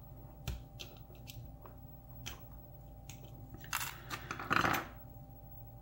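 Small metal clicks and scrapes of a small screwdriver working at the retaining clip on the back of a pin-tumbler lock cylinder. A denser, louder run of metal scraping and clicking comes about four seconds in.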